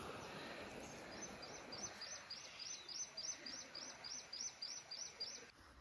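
Faint rush of running creek water, with a small bird calling a rapid series of short, high, falling chirps, about four a second, from about a second in until near the end.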